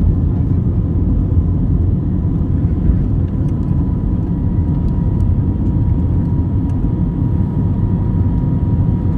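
Steady low rumble of jet engines and rushing air heard inside the cabin of an Airbus A320-family airliner climbing out just after takeoff, with a faint steady whine above it.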